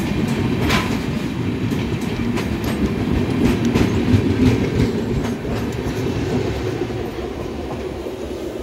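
LHB coaches of an express train running past close by on the adjacent track: a steady rumble with wheels clicking and clattering over rail joints. The noise eases off in the last few seconds as the rear luggage brake and generator car goes by.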